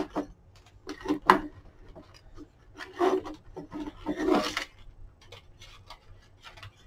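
Gimp trim being pulled through the lacing holes of a small lampshade: short, irregular scraping pulls of cord against the shade, with small handling clicks in between.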